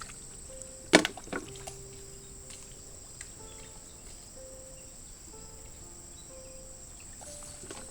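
A sharp knock about a second in, then a smaller one, over a steady high drone of insects and soft background music of held notes.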